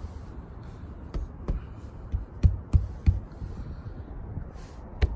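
Irregular dull knocks and taps, about seven in all, of a hand hitting the Tesla Model 3's body and glass to trigger Sentry Mode, over a steady low hum.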